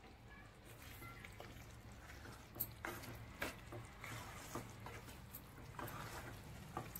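Spoon stirring chicken and ginger-garlic paste in a kadhai: faint scrapes and scattered light clicks of the spoon against the pan, over a faint steady low hum.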